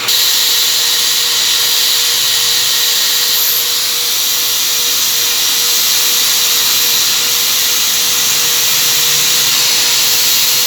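A steady, loud rushing hiss of air with a faint steady whine underneath, starting abruptly and holding level throughout.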